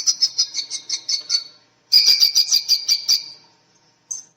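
Falcon calling: two bouts of rapid, shrill repeated notes, about seven a second, then one short note near the end.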